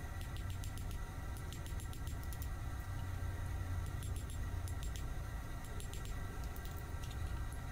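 Steady low machine hum holding a few even tones, with faint light clicks and ticks scattered throughout. No hammer blows.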